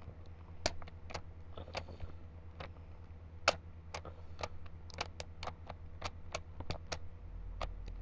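Rubik's Cube being turned fast by hand, its plastic layers clicking in quick, irregular snaps, over a steady low hum.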